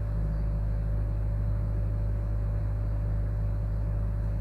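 A steady low hum with a faint constant tone over it, even throughout.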